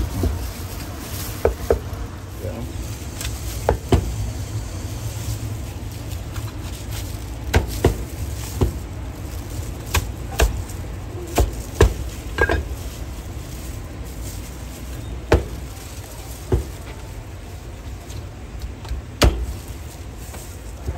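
Heavy cleaver chopping a whole roast chicken through bone onto a round white cutting board: sharp, irregular chops coming a fraction of a second to a few seconds apart, over a steady low hum.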